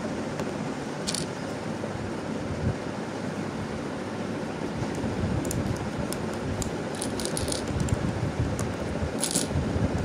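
Small plastic brick tiles clicking as fingers press them onto the studs of a brick-built 3x3x3 puzzle cube: a single click about a second in, a quick run of clicks in the second half and another near the end. Under them is a steady rushing background noise.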